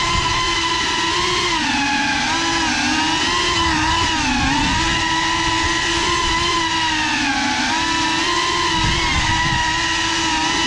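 Small FPV quadcopter's brushless motors and propellers whining, the pitch wavering up and down as the throttle changes.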